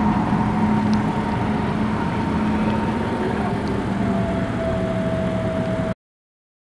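A car engine idling steadily, with voices mixed in, cutting off abruptly near the end.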